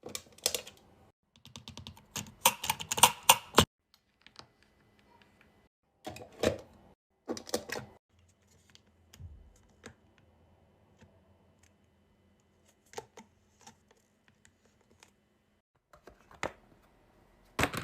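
Irregular bursts of rapid clicking and crackling from wax being handled, with quiet gaps between the bursts. The busiest, loudest cluster comes a couple of seconds in, and shorter bursts follow.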